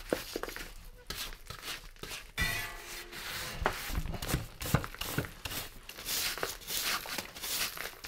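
A soft cleaning brush scrubbing dried mud off a dirty mountain bike in a run of irregular, scratchy strokes.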